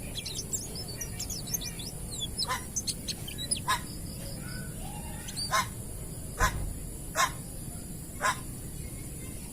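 White-eye (pleci) singing in the 'ngalas' style: quick high twittering notes for the first two seconds, then a string of sharp, loud notes about a second apart. A steady high hiss runs underneath.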